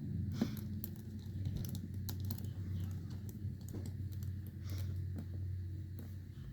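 Small scattered clicks and taps of a precision screwdriver and tiny screws being worked into a smartphone's internal frame during reassembly, the sharpest click about half a second in, over a steady low hum.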